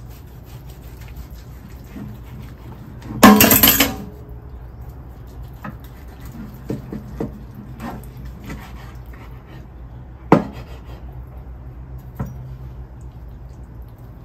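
A carving knife slicing a roast prime rib on a plastic cutting board, with the knife and carving fork knocking and clicking against the board. There is a loud clatter of under a second about three seconds in and a sharp tap about ten seconds in, over a low steady hum.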